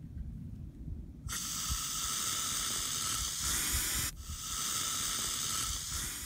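Aerosol can of wasp spray hissing in two long bursts: the first starts about a second in and runs nearly three seconds, then after a brief pause a second burst runs to the end.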